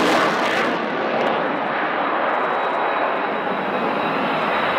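Jet noise from an F-22 Raptor's twin Pratt & Whitney F119 turbofan engines in flight. The sharp high hiss falls away less than a second in, leaving a steady, duller rumble.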